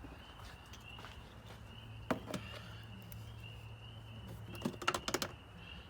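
Faint plastic clicks and ticks of a quart oil bottle's cap being worked open by hand: a couple about two seconds in, then a quick cluster near the end. A repeated high chirping runs steadily in the background.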